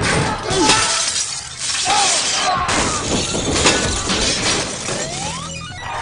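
Glass shattering again and again under gunfire: a glass claw-machine cabinet being shot out, with many sharp impacts and falling shards. The din eases off toward the end.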